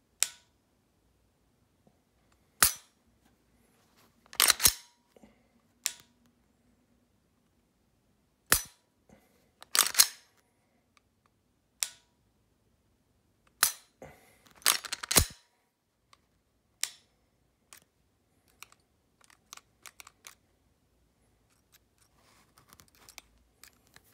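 Sharp metallic clicks of a Glock 17 with a Zev Fulcrum trigger kit being dry-fired, the trigger breaking every few seconds. Some clicks come singly and some in quick groups of several, and the last several seconds hold only faint small clicks and handling.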